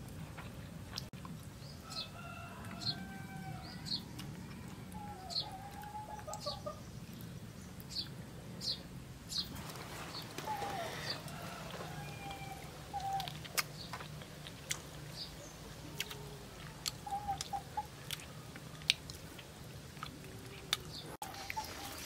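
Chickens clucking in short broken calls, with a bird chirping repeatedly for the first several seconds, over a low steady hum.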